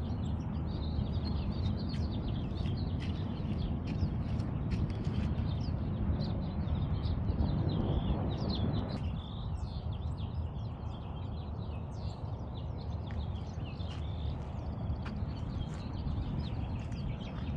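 Small birds chirping and twittering continuously in many quick, short notes, over a steady low rumble.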